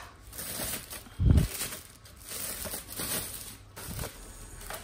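Thin plastic bag crinkling and rustling in several bursts as it is pulled open and slid off by hand, with one dull thump about a second in.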